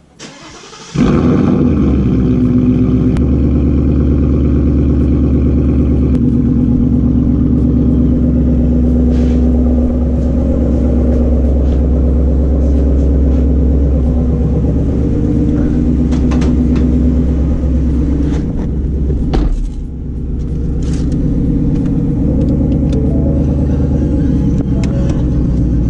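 A 2018 Ford Mustang GT's 5.0-litre Coyote V8 starts about a second in and then idles steadily, rumbling through a newly fitted Steeda H-pipe exhaust. There is a single thump about two-thirds of the way through.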